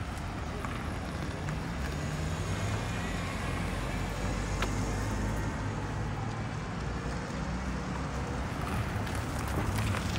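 Road traffic: car engines and tyres running by, a steady low hum of passing vehicles.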